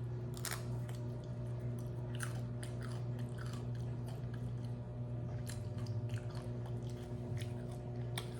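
A person chewing food close to the microphone: irregular crunches and wet mouth clicks. A steady low electrical hum runs underneath.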